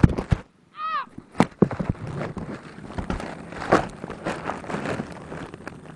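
Phone camera knocked over and tumbling into grass: loud sharp knocks, a short high-pitched yelp about a second in, then more knocks and scattered rustling as it is handled on the ground.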